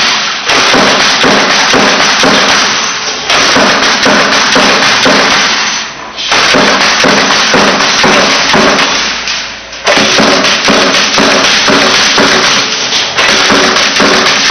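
Background music with a steady beat and tambourine-like percussion.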